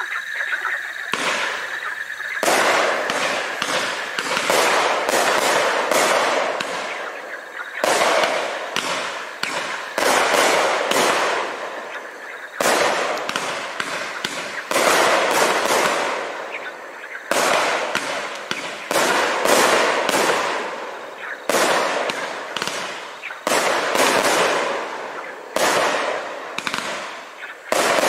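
Winda Fireworks 'Pizza Sampler' 500-gram consumer cake firing shot after shot, a new launch every second or two, each breaking in the air with bursts and crackling.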